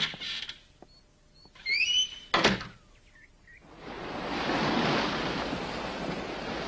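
Cartoon soundtrack effects: a couple of sharp thuds, then a steady rushing noise like wind or surf that swells in about three and a half seconds in and holds.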